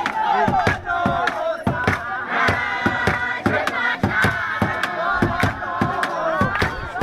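Crowd singing and shouting an ingoma dance song in high voices, over a steady run of sharp beats several times a second.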